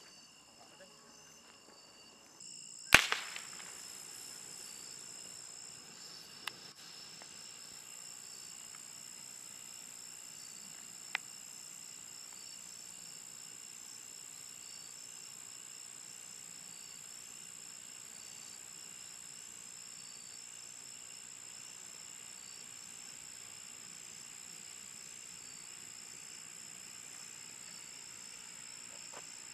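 A 60-second colour flare firework catches with one sharp pop about three seconds in, then burns with a steady hiss. Crickets chirp throughout.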